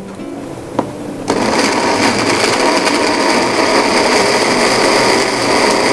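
Meco personal tumbler blender switched on about a second in, its motor then running steadily as it blends raw peeled shrimp and egg into a paste for shrimp balls.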